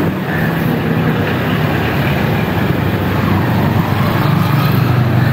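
Royal Enfield Bullet motorcycle's single-cylinder engine running steadily, growing somewhat louder near the end.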